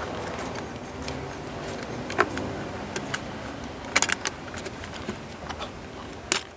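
Hard plastic parts of an amplifier speaker clicking and knocking as they are handled and fitted back together by hand. The sound is a few separate sharp clicks, with a quick cluster of them about four seconds in.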